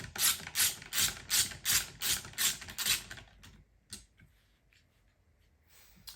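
Hand ratchet wrench undoing bolts on a car seat rail, clicking in quick back-and-forth strokes about three times a second. The clicking stops about three seconds in, followed by one sharp knock.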